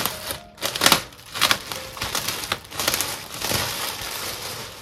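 Clear plastic garment bag crinkling and rustling as hands pull it open, with a few sharper, louder crackles in the first second and a half.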